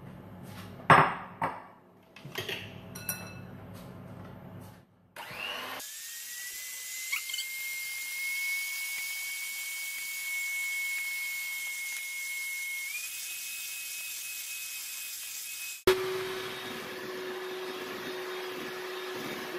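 A few knocks and clicks, then an electric hand mixer starts up with a steady motor whine, its beaters whisking egg whites in a stainless steel bowl. About eight seconds later the pitch steps up as the speed is raised; after an abrupt cut near the end the mixer runs on at a lower pitch in the thickened meringue.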